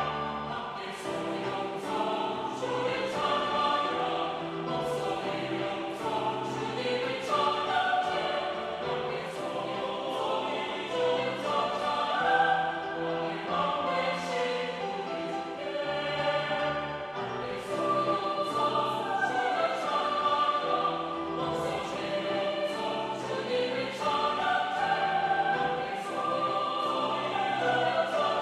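Mixed choir singing a Korean sacred anthem in four-part harmony, with piano accompaniment.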